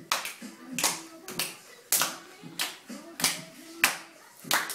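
Hand clapping in a steady rhythm, a little under two claps a second, keeping time for a dancing child.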